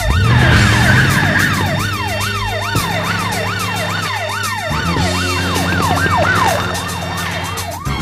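A siren wailing in quick falling sweeps, about two a second, over low held music notes and a fast ticking beat.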